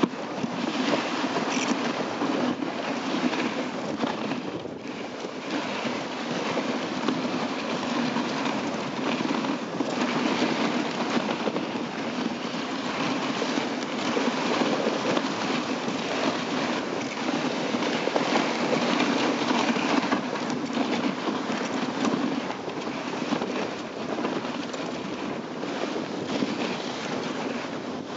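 Dog sled moving over packed snow behind a running team of huskies: a steady scraping hiss of the sled runners and the dogs' paws on the snow.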